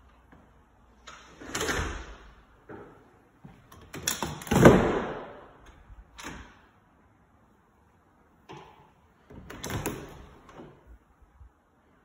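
Closet doors sliding and knocking as they are opened and shut, several times; the loudest about four to five seconds in.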